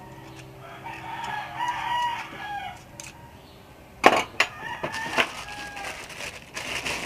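A rooster crows once, about a second in, over a steady low hum. A sharp knock follows near the middle, then a few shorter clucking calls.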